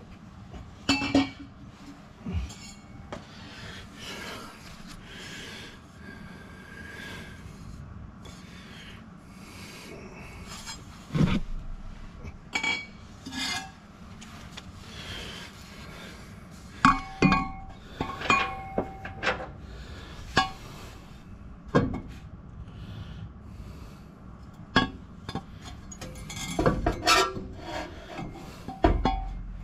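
Pieces of steel exhaust pipe being handled and test-fitted: irregular clanks and knocks, some ringing briefly, with metal scraping against metal in between.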